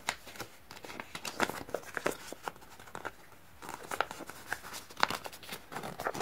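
A small cardboard blind box being opened by hand and its printed card unfolded: irregular rustling, crinkling and small clicks of card and paper, in two busy spells.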